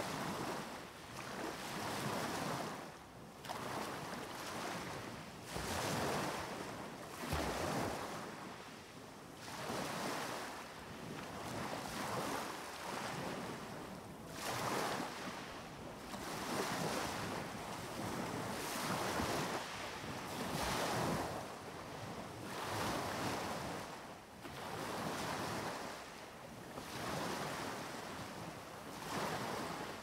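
Sea waves breaking and washing up the beach close up, a fresh surge of rushing water about every two seconds.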